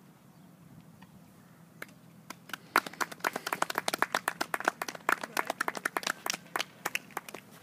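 A small group of people clapping: a single clap about two seconds in, then a run of separate, distinct claps that thins out and stops near the end.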